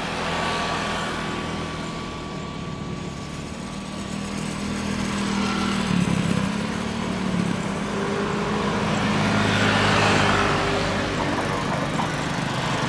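Boeing 787-9 jet engines running at low taxi thrust as the airliner lines up on the runway, heard from a distance as a steady hum with held tones, growing louder about six seconds in, with a broad swell of noise around ten seconds in.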